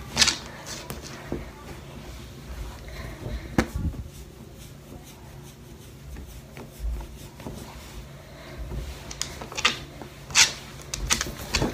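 Terrycloth towel rustling and rubbing against a dog's wet fur as it is dried by hand, in a few short scattered bursts over low handling rumble.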